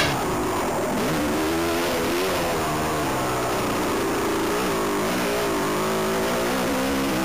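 Suzuki RM250 two-stroke single-cylinder dirt bike engine running under throttle, its pitch rising and falling as the throttle is worked on the trail.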